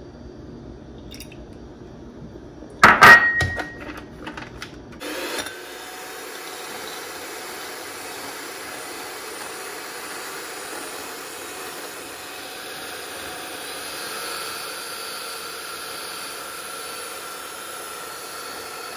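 Electric hand mixer running steadily from about five seconds in, its beaters whipping cream in a glass bowl. Before it starts, a loud clatter about three seconds in.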